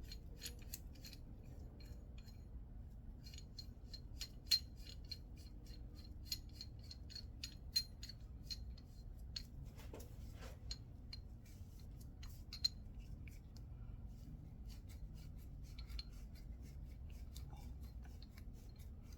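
Threaded adjuster on a QA1 coilover being spun by hand along the threaded shock body: a run of light metallic clicks and ticks, about three a second, thinning out after about 13 seconds.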